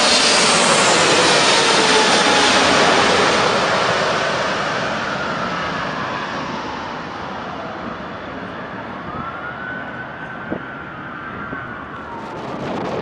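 Jet airliner's engines passing close by on landing: a loud rushing noise with engine whine sliding down in pitch, fading over the last several seconds.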